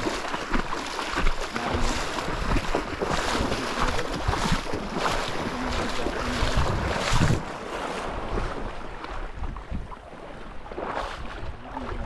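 Footsteps wading through shallow seawater, a splash with each step about once or twice a second, with wind on the microphone; the splashing eases off after about seven seconds.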